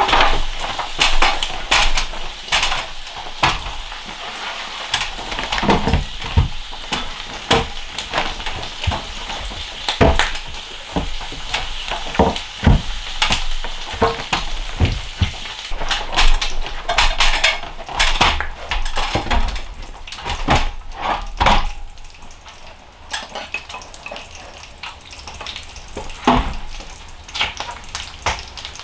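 Irregular knocks, taps and clatter with short scraping stretches: wooden ceiling boards and tools being handled and fitted overhead from a ladder. The sounds are busiest in the first two-thirds and sparser near the end.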